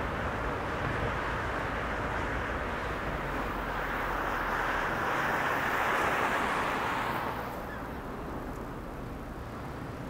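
Steady tyre and wind noise of a car driving on a highway. It swells to a louder whoosh from about the fourth second and drops off fairly sharply after about seven and a half seconds.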